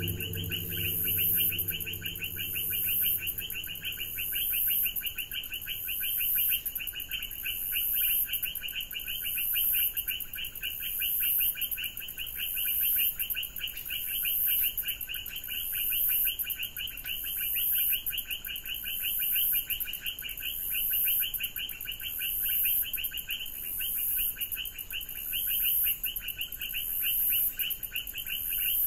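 Rainforest animal chorus: a fast, steady trill and a high shrill hum that swell and fade together roughly every one and a half seconds.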